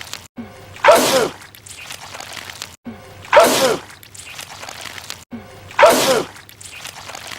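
A man sneezing loudly, the same film sneeze looped so it comes three times, about two and a half seconds apart. Each sneeze is a sharp blast with a voiced part that drops in pitch, and there is a brief dropout at each repeat.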